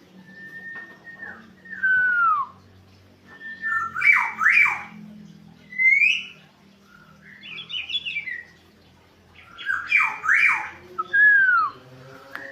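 Black-naped oriole (kepodang) calling: clear downward-slurred whistles mixed with harsh squawking notes, in short phrases every couple of seconds over a faint low hum.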